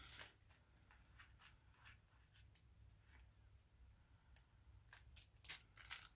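Near silence with faint rustles and small clicks of paper die cuts being handled, two slightly louder ticks near the end.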